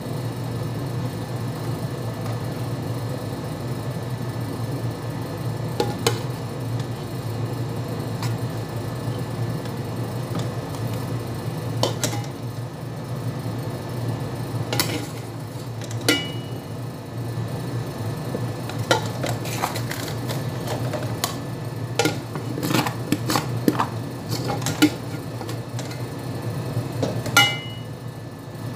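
A metal spoon and aluminium cooking pots clinking, scraping and knocking against each other in scattered irregular hits, busier in the second half, over a steady low hum. Twice a pot gives a brief metallic ring.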